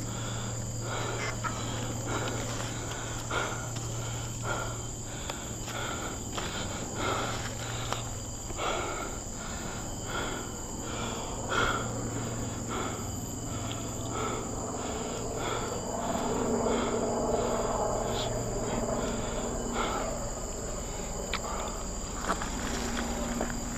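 Mountain bike rolling over a leaf-covered dirt trail: tyres crunching and rustling on leaves and dirt, with the bike rattling in short irregular clicks over bumps, louder for a few seconds past the middle. A steady high-pitched insect drone runs underneath.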